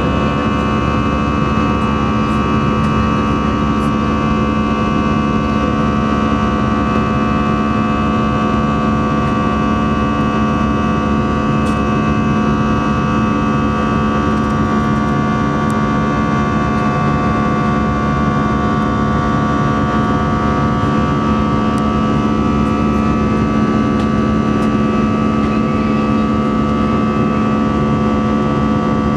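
Jet airliner cabin noise during the climb after take-off: the engines' steady drone, a hum of several steady tones over an even rush of air.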